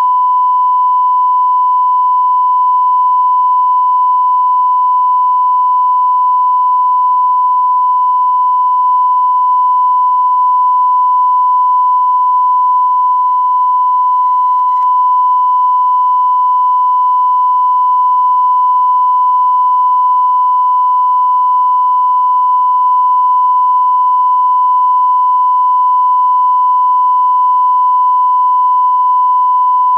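Continuous broadcast line-up test tone, the reference tone that runs with colour bars at the head of a tape: one loud, unbroken pitch held perfectly steady, with a brief click about halfway through.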